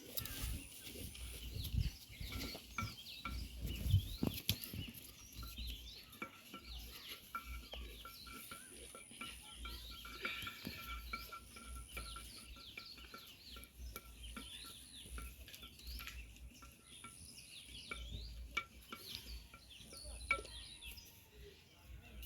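A wooden stirring stick working food in a cooking pot, with a few knocks against the pot, while birds chirp steadily in the background.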